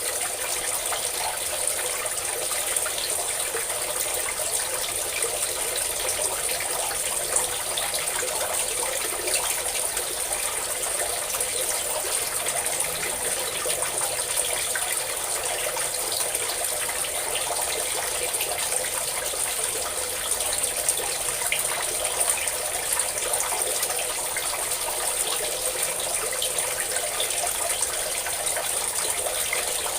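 A stream of water pouring and splashing steadily without a break.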